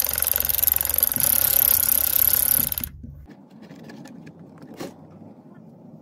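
Power ratchet on a 17 mm socket and extension buzzing steadily for about three seconds as it spins the engine oil drain plug loose, then cutting off abruptly. Faint handling clicks follow as the plug is turned out by hand.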